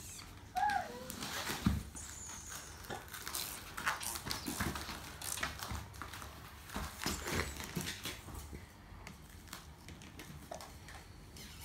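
Toddlers playing with toys on a foam play mat: scattered small taps, knocks and rustling, with a short high squeak about a second in.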